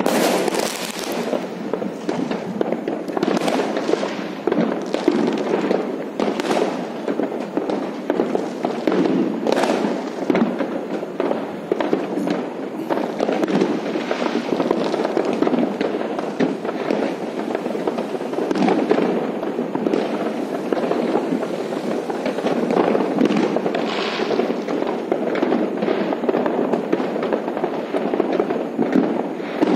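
Many fireworks exploding at once: a continuous din of overlapping bangs and crackles, with louder single bangs standing out every few seconds.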